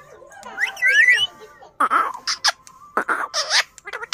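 Indian ringneck parakeet vocalising: a wavering, whistle-like call about a second in, followed by a series of short, harsh, clipped calls.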